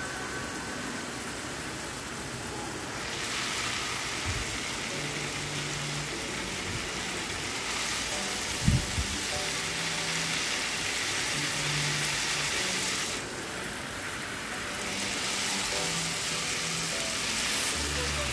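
A steady, dense hiss that eases off briefly twice, heard over soft background music with low held notes, and one short knock about halfway through.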